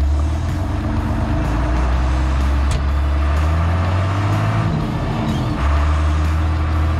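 Tractor engine running steadily, pitch rising a little about three seconds in, dropping off near the middle and picking up again about a second later. A single sharp click sounds just before the rise.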